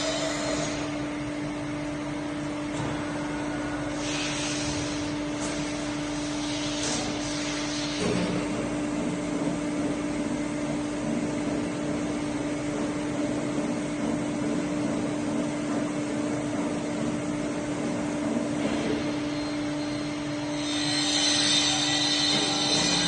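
Correa A30/50 CNC bed milling machine running: a steady mechanical hum with one constant tone, broken by short bursts of hissing about four and seven seconds in and again near the end.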